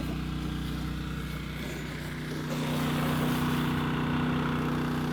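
Small gasoline engine of a pressure washer running steadily, with a hiss that grows louder about two and a half seconds in.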